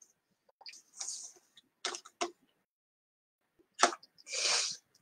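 Close-up mouth sounds of someone eating yogurt: a few sharp smacks and clicks, and a short breathy rush near the end.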